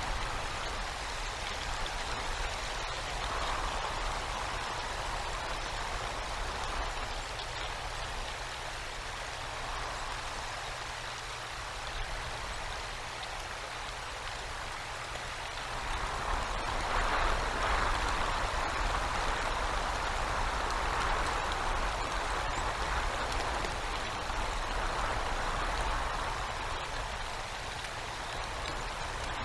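Winter storm heard through an outdoor nest-cam microphone: a steady rush of wind and icy rain that swells and eases in slow gusts, growing louder a little past halfway, over a faint steady low hum.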